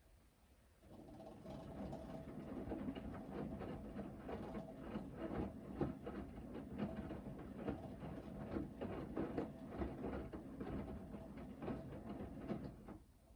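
Hoover VHD 9163 ZI washing machine drum turning during the main wash, with laundry and water tumbling and knocking over the motor's hum. It starts about a second in and stops about a second before the end, one turn of the wash rhythm between pauses.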